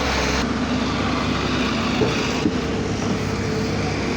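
Earth drilling machine for laying optical fibre cable, its engine running steadily with a dense, even noise; the deepest rumble drops away about half a second in.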